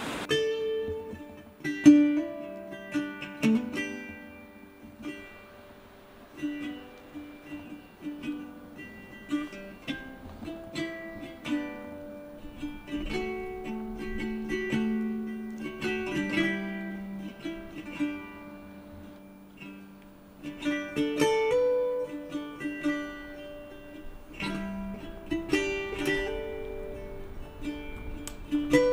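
Background instrumental music: a plucked-string melody, light and acoustic, one note after another.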